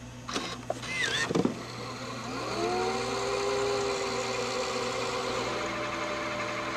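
RCA CC413 VHS camcorder's tape mechanism shifting into rewind: a few mechanical clicks, then about two seconds in the reel motor spins up to a steady whine as the tape rewinds.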